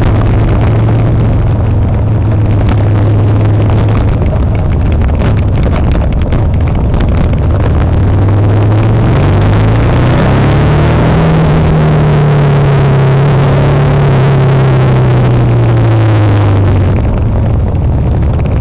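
Motorcycle engine running on the road under loud wind rush on an onboard camera's microphone. About nine seconds in, the engine note rises as the bike speeds up, then falls slowly as it eases off.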